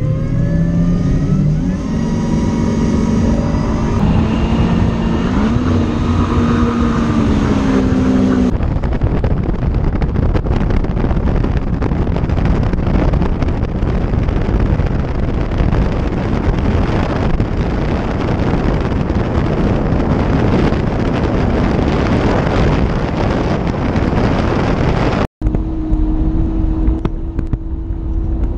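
Mercury Verado 400R outboard, a supercharged inline-six, accelerating hard, its pitch climbing over the first several seconds. From about eight seconds in, a loud rush of wind and water at speed covers the engine. Near the end a steady engine tone rises above the wind again.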